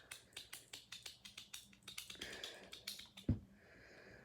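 Rapid plastic clicking, about six clicks a second, from the button on a Spider-Man action figure being worked, then one thump about three seconds in.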